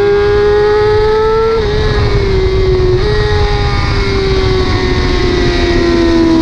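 BMW S1000RR inline-four engine at high revs, around 11,000 to 12,000 rpm, with wind rush over the bike. A quick gear change drops the pitch slightly about a second and a half in, there is a short dip near the middle, and the revs then fall slowly toward the end.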